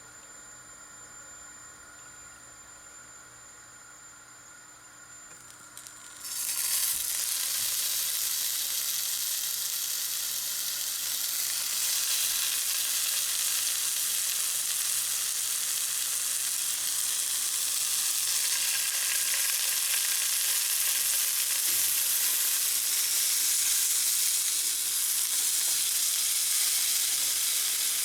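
Food sizzling in a hot frying pan, starting suddenly about six seconds in and then going on steadily.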